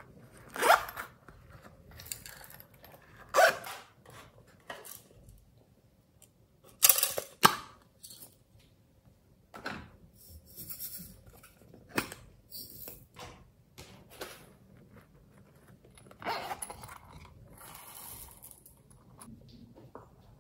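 Hands handling slime-making supplies: a string of short crackling rustles and clicks from a zipper being opened on a plastic pouch, plastic containers being handled, and sequins and glitter being shaken out, with the loudest sounds about a second in, three seconds in, and around seven seconds.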